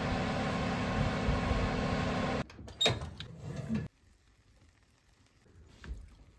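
A steady whirring hum that cuts off suddenly about two and a half seconds in, then a sharp metal clank and rattle of the baking pan and wire oven rack lasting about a second, after which it falls near quiet with a faint click near the end.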